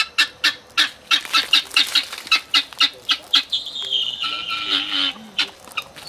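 A flock of helmeted guineafowl calling: a fast run of repeated notes, about four a second, giving way to a longer held call a little past halfway.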